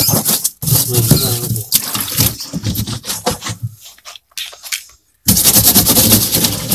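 Water splashing and sloshing in a plastic fridge-box tank as its inside is rubbed with soil and rinsed. The sound cuts out briefly about five seconds in, then resumes with a louder hiss of running water.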